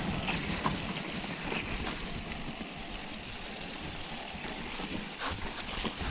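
Mountain bike rolling fast down a rough, wet, muddy trail: a steady rush of tyre noise over mud and puddles, with a few sharp knocks from the bike rattling over bumps and a low rumble of wind on the microphone.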